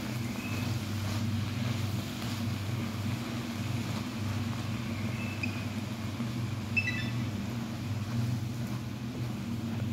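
A steady low mechanical hum under a wooden spatula stirring a chicken-and-greens filling in a wok, with one light knock of the spatula against the pan about seven seconds in.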